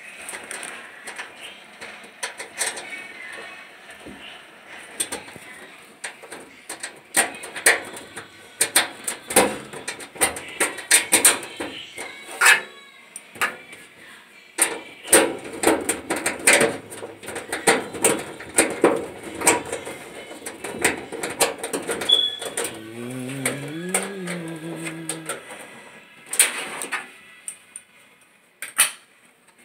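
Clothes dryer's sheet-metal panels and parts clanking, knocking and rattling in irregular sharp hits as they are handled and refitted by hand. A short rising-and-falling call is heard a little before the end.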